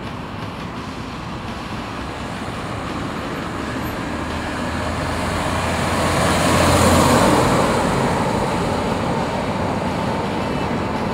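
1969 Volvo 142 S and its four-cylinder engine driving past on a road: engine and tyre noise grow louder to a peak about seven seconds in, with a low engine hum, then fall away as the car moves off, over road traffic noise.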